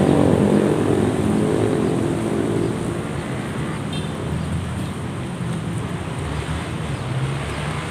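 A motor engine running, louder for the first two or three seconds, then easing off to a steadier, lower hum.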